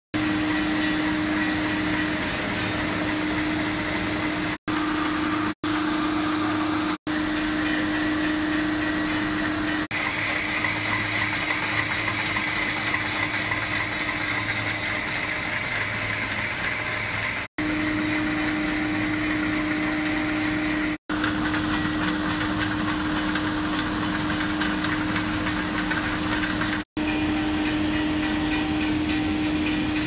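Rotary tablet press for two-layer dishwasher tablets running: a steady motor hum under a dense, even mechanical clatter. The sound cuts out briefly several times.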